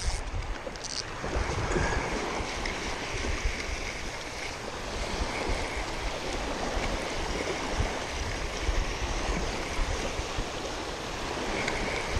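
Small waves lapping steadily on a sandy shore, with wind gusting on the microphone.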